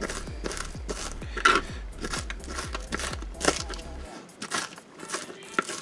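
A kitchen knife chopping green onions on a plastic cutting board: a quick, even run of knife strokes at about four a second, thinning out near the end.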